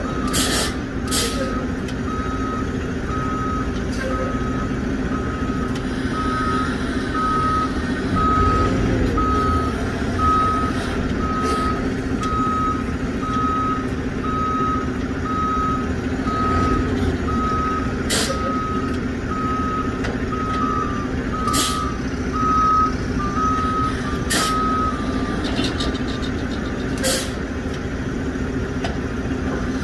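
A diesel semi truck backing up to a loading dock, its reverse alarm beeping steadily at one pitch about once a second until near the end, over the engine's steady running. Several short sharp bursts of air from the air brakes cut in now and then.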